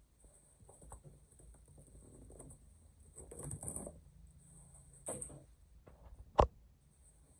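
Cardboard shipping box being opened by hand: scattered rustling and scraping of its stapled flaps, with a single sharp snap near the end as the loudest sound.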